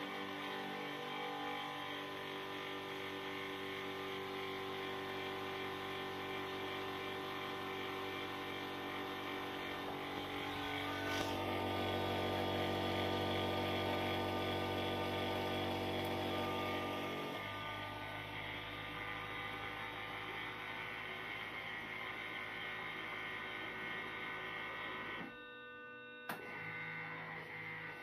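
dev.a automatic film processor running: a steady machine hum made of several steady tones. It grows louder for several seconds midway and briefly drops away near the end.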